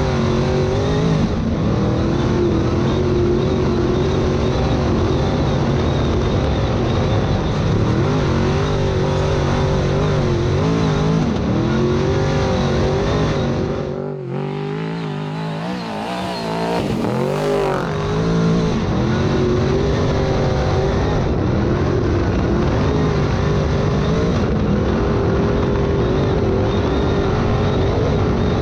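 Off-road race vehicle's engine running hard at high revs, its pitch wavering up and down with the throttle. About halfway through, the deep low end drops away for a few seconds, then the full engine sound returns.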